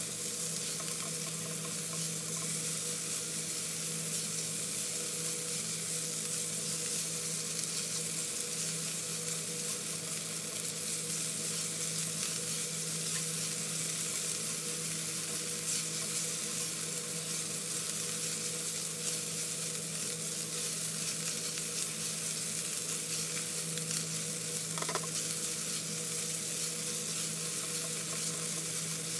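Diced bacon and onion sizzling steadily in oil in a frying pan over medium-high heat, stirred with a spatula, over a steady low hum.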